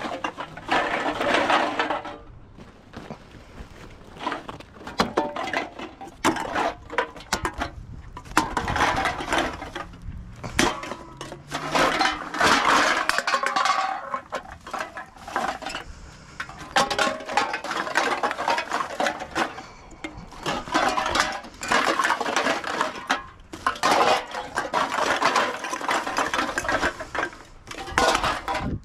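Empty aluminium drink cans clinking and rattling against each other as they are handled and bagged, with plastic bags rustling, in irregular bursts.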